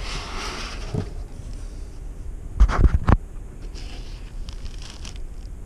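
Handling noise as a car amplifier in foam end caps is lifted out of its cardboard box: foam and cardboard rustling and scraping, with a quick run of heavy thumps about halfway through.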